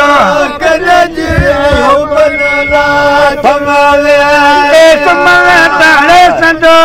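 Men singing a folk chant together, with an ornamented, wavering lead voice over a steady held drone.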